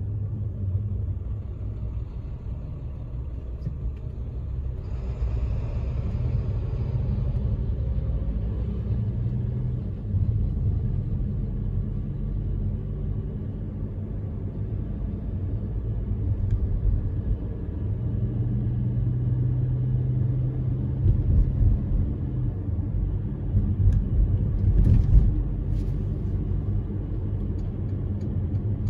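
A car driving on city roads: low, steady rumble of road and engine noise, with a brief brighter hiss about five seconds in.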